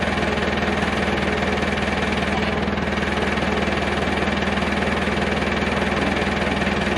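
Tractor engine running steadily as it lifts an engine and gearbox out of a vehicle on chains.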